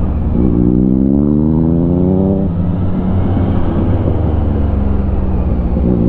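Yamaha XSR900's inline-three engine pulling hard, its pitch rising for about two seconds, then dropping suddenly about two and a half seconds in and running on steadily.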